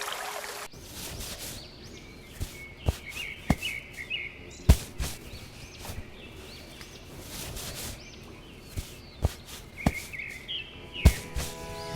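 Birds chirping in short calls, with a scattering of sharp clicks and knocks, the loudest nearly five seconds in.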